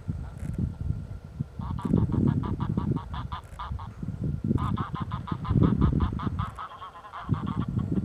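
Geese honking in two fast bouts of repeated calls, about seven notes a second, over a low rumble of wind on the microphone.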